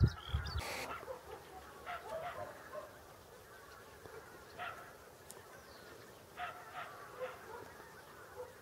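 A flock of wild geese calling faintly, scattered honks overlapping now and then, with a short rush of noise just under a second in.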